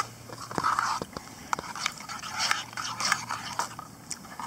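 Eating soup close to the microphone: chewing and slurping mouth sounds, with a few sharp clicks of a metal spoon against a canteen cup.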